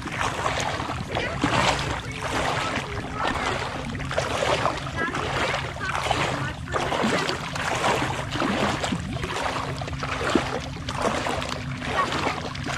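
Feet wading through shallow water, splashing and sloshing in an even walking rhythm of about one step every two-thirds of a second, over a faint steady low hum.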